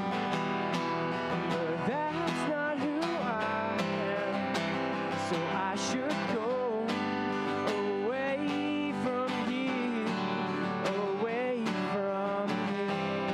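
Live acoustic guitar strummed as accompaniment while a man sings a wavering melody line into a microphone.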